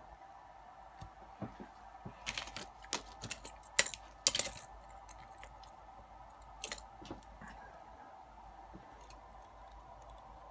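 Small metal lockpicking tools being handled, giving a scatter of light clicks and clinks, the sharpest a little before the middle. A tension wrench is tried at the keyway of a brass Yale lock cylinder held in a vise. A faint steady hum lies underneath.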